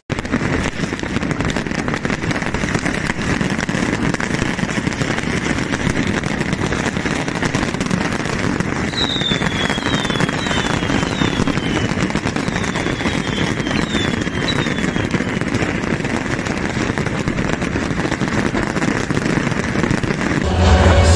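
A fireworks barrage: a dense, continuous crackle of many small explosions going off together. About halfway through comes a run of seven or eight short falling whistles.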